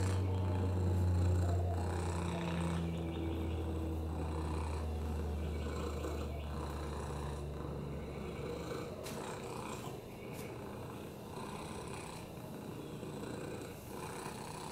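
Domestic cat purring steadily while being stroked on a lap; the purr fades out about two-thirds of the way through.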